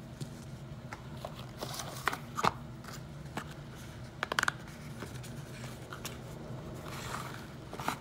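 Stock-cube packaging handled and set down on a cloth: foil-wrapped cubes and small cardboard boxes giving soft rustles and crinkles with a few sharp taps, including a quick cluster of taps about four and a half seconds in.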